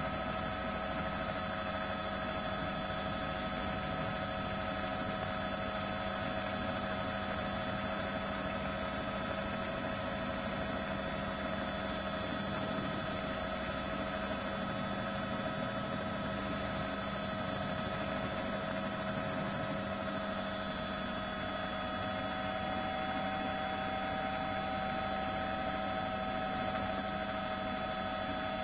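Steady drone of a helicopter heard from on board: a constant hum with several whining tones layered over it, one of which edges slightly higher past two-thirds of the way through.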